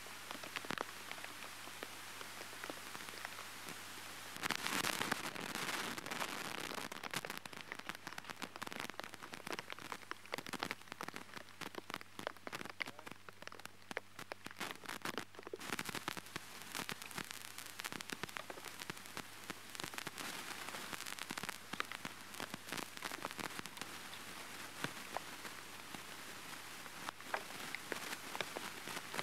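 Rain falling on river water and wet wooden planks, a steady dense patter of drops. It grows louder for a couple of seconds about five seconds in.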